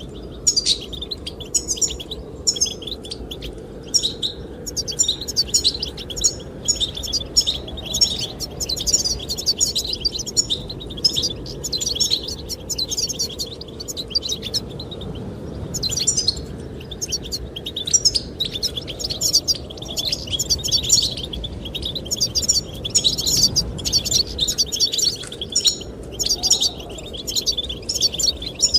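Goldfinches singing: rapid, continuous twittering chirps and trills with brief gaps, over a steady low rush of wind.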